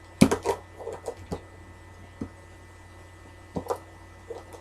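Scattered sharp plastic clicks and knocks from handling a small cell phone and its packaging. A cluster of the loudest clicks comes just after the start, with fainter ones through the rest.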